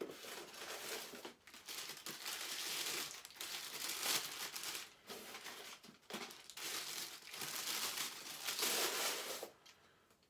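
Statue packaging being handled and unwrapped, a run of crinkling bursts with short pauses between them that stops shortly before the end.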